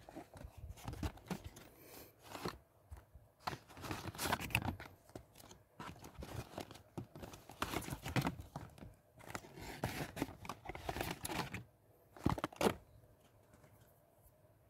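Small cardboard boxes being pulled out of a cardboard display carton and set down: irregular scraping, rustling and light knocks of cardboard on cardboard, with two louder knocks near the end.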